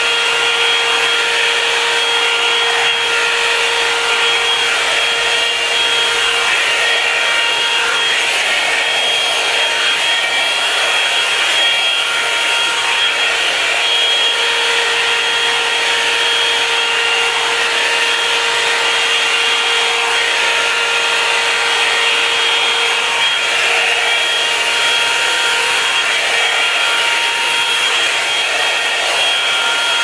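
Revlon One-Step hair dryer brush on its cool setting, running continuously as it is drawn through hair: a steady rush of blown air with a constant motor whine.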